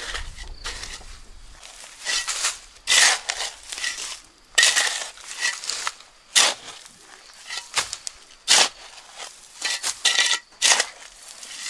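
A metal shovel blade scraping and digging into a mound of gravelly soil. Gritty scrapes come in quick, uneven strokes every second or so, with short pauses between them.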